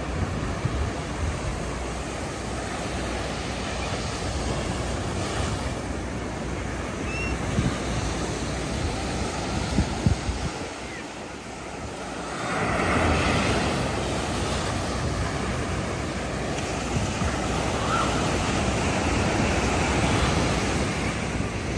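Ocean surf breaking and washing against rocks and shore, with wind buffeting the microphone; a wave surges louder about halfway through.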